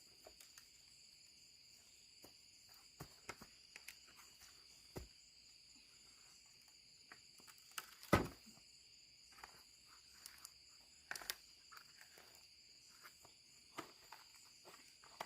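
Faint, steady high-pitched insect chirring, with scattered light knocks and taps; the loudest knock comes about eight seconds in.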